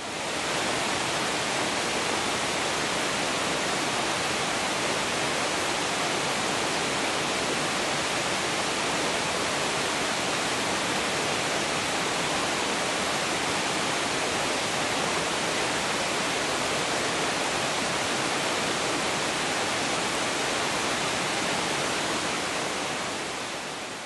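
A waterfall sheeting down a broad sloping rock face: a steady, even rush of falling water that fades out near the end.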